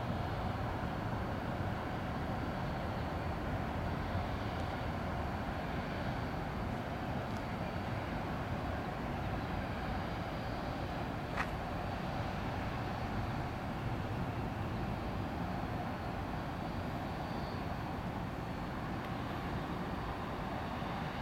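Steady, even rumble of a distant Boeing 747 jet airliner flying overhead, over outdoor urban background noise, with a faint steady high whine. A single sharp click about eleven seconds in.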